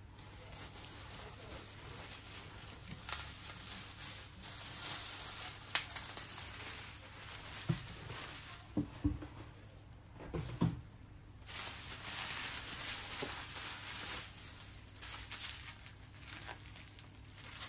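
Crinkling of plastic bags and bubble wrap and rustling of shredded-paper packing as groceries are lifted out of a cardboard box, with a few light knocks. The sound breaks off briefly about ten seconds in.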